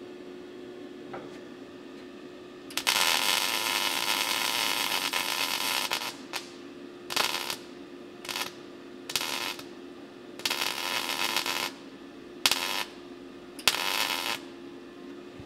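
MIG welder crackling as a replacement gutter section of thin sheet steel is welded onto a car roof. One run lasts about three seconds, then comes a string of short bursts, with a steady low hum underneath.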